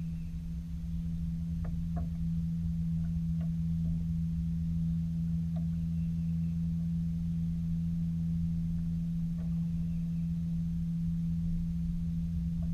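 A steady low-pitched hum with a deeper rumble underneath, and a few faint, light knocks scattered through it.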